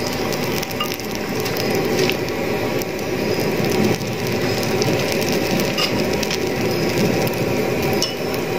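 Kerala porotta sizzling and crackling in freshly added oil on a hot griddle, a steady frying hiss with scattered small crackles and clicks.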